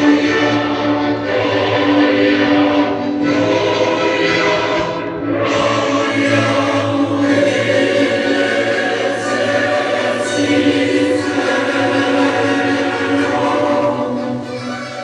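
A choir singing sustained, held notes over music, in phrases that swell and break every second or two.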